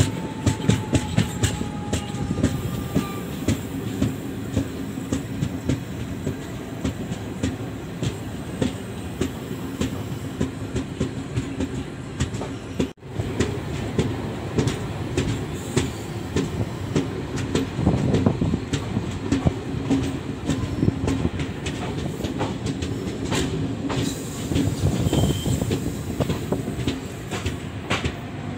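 Passenger train coach running at speed: a steady rumble of wheels on track with a rapid, uneven clatter of sharp clicks over rail joints. The sound cuts out for an instant about halfway through.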